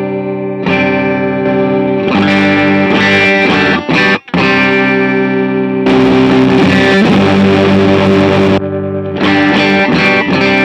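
Electric guitar played through a pedalboard of effects with distortion, ringing chords that are cut off briefly about four seconds in and come back with a brighter, grittier tone for a few seconds.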